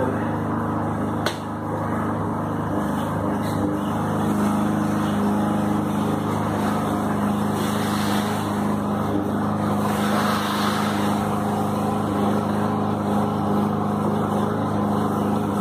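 An engine running steadily with an even, low drone, loud enough to fill the scene; a single sharp click about a second in.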